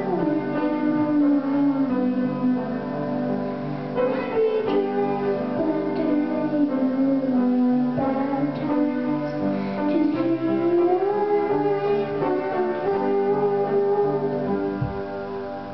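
A girl's voice singing a melody of long, sliding notes into a microphone, over a piano accompaniment; the music grows a little quieter near the end.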